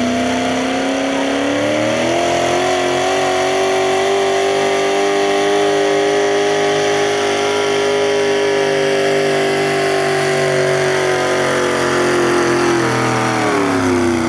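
Pulling truck's engine held at high revs under load. Its pitch climbs over the first two seconds, holds steady, then drops back near the end as the throttle comes off.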